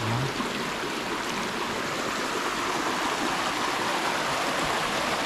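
Mountain stream water running steadily.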